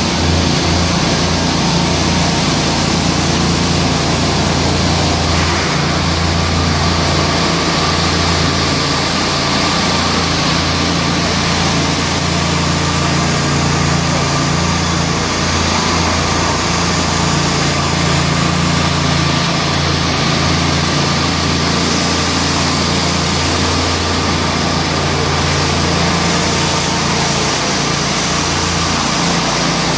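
Steady, unbroken engine noise of concrete-finishing machinery: the small petrol engines of walk-behind and ride-on power trowels running continuously, with a concrete mixer truck's engine running behind them.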